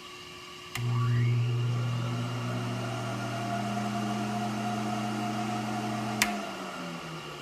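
A 1000 W smoke and fume extractor switched on with a click, its motor whine rising as it spins up, then running steadily with a low hum. Near the end it is switched off with another click and the hum winds down.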